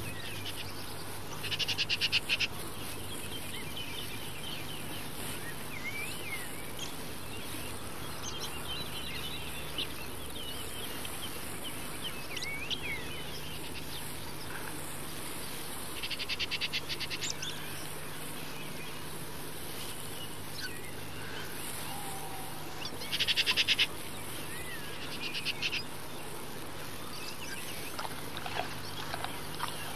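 Countryside ambience of scattered bird chirps and several short bursts of fast trilling, the loudest about two seconds in, just past the middle and at about two-thirds through. A steady low hum and hiss run underneath.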